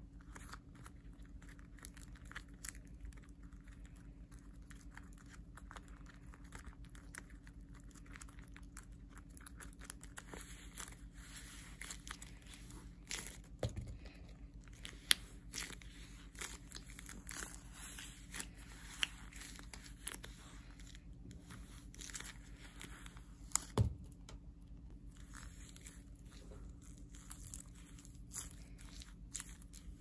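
Homemade fidget toys being handled: faint, irregular crinkling and crackling with scattered sharp clicks, over a steady low hum.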